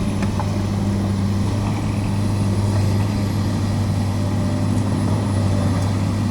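Volvo excavator's diesel engine running steadily with a low, even hum, with a few faint clicks over it.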